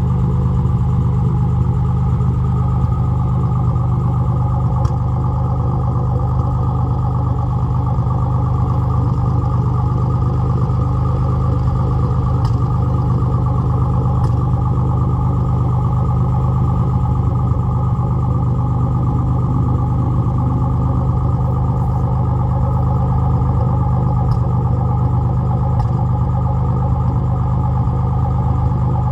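Nissan 300ZX (Z31) V6 engine running steadily at an unchanging speed, with a misfire that calls for a top-end rebuild.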